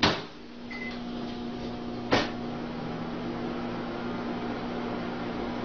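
Microwave oven running with a steady hum, while it fails to heat the food. A knock at the start and another about two seconds in, with a short high beep about a second in.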